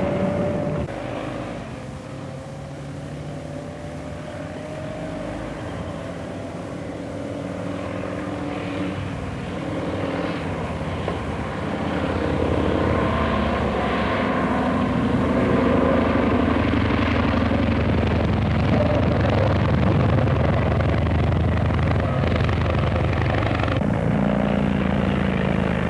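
Motorcycle and car engines running at speed, a steady drone that grows louder from about halfway through.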